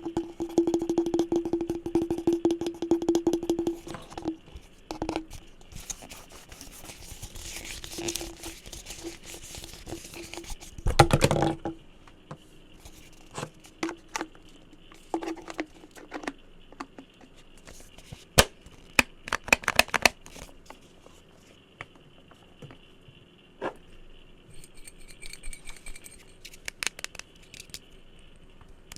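Fingers and nails tapping, scratching and handling assorted objects close to the microphone. A fast run of taps in the first few seconds sets something ringing with a steady low note. About 11 seconds in there is a louder brief scrape, then scattered single taps and clicks.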